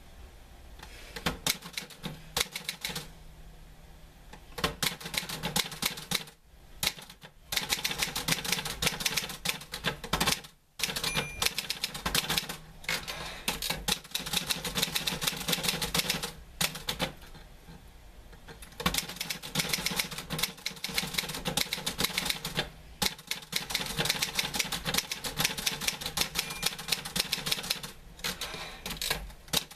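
Typewriter keys clacking in fast runs of keystrokes, broken every few seconds by short pauses.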